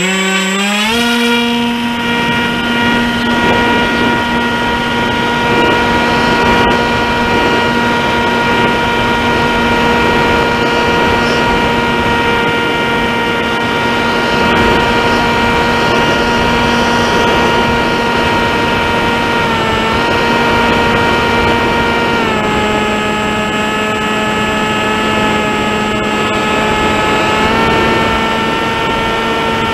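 Electric motor and propeller of a Tek Sumo flying wing, heard on board in flight. A steady whine rises quickly as the throttle comes up at launch, over a rush of wind noise. The pitch drops slightly twice past the middle as the throttle is eased, then steps up again near the end.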